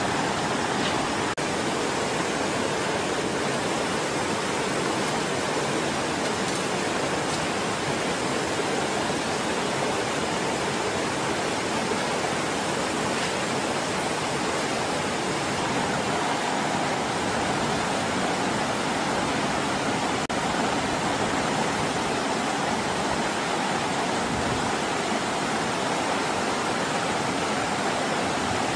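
Steady rushing of water over rocks, an even unbroken roar that holds the same level throughout.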